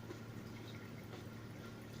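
Faint wet chewing and mouth sounds of someone eating instant noodles: small smacks and clicks, over a steady low hum.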